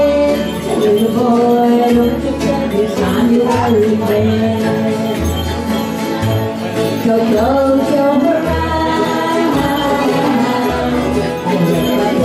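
Bluegrass band playing acoustic guitars, five-string banjo, fiddle and upright bass, with a lead vocal over the strummed rhythm and a walking bass line.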